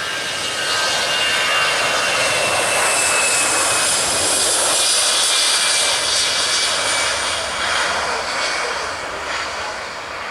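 Jet airliner passing low overhead, its engine noise swelling to a peak midway and then fading, with a high whine that slides slowly down in pitch.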